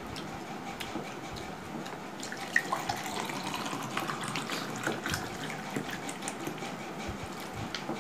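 Water poured from a plastic bottle into a glass, a sharp click just before the pour and the stream running for a few seconds in the middle. Light clicks and taps from hands eating rice off steel plates throughout.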